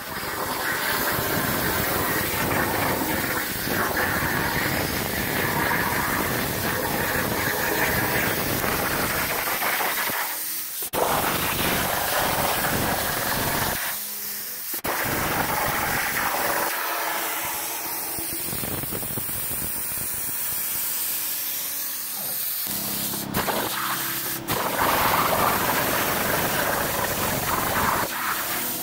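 CNC plasma cutter torch cutting 1/8 inch mild steel: a steady, loud hiss of the plasma arc, which breaks off briefly a few times as the torch stops between cuts.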